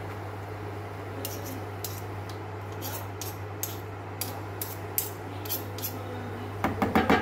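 Metal cutlery clinking lightly and irregularly as chopped parsley is scraped and tapped off a fork into a bowl of sauce, ending with a quick run of louder taps. A steady low hum runs underneath.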